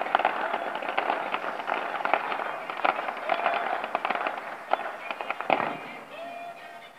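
Fireworks crackling densely with many small pops, one heavier bang about five and a half seconds in, then the crackle thins and dies away.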